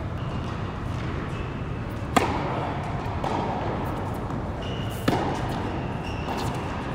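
Two tennis balls struck by rackets about three seconds apart, each a sharp hit with an echo from a large indoor tennis hall, over a steady background hum.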